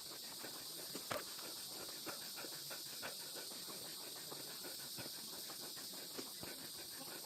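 Steady high-pitched insect buzz and hiss of a summer forest, with faint scattered clicks and taps throughout.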